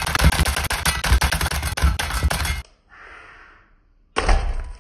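A dropped lemon striking a kitchen knife mounted on a toy RC fire truck and being cut, with a rapid clatter of knocks and thuds from the knife, the plastic truck and the lemon pieces on a wooden cutting board. The clatter stops about two and a half seconds in, and another loud thud comes near the end.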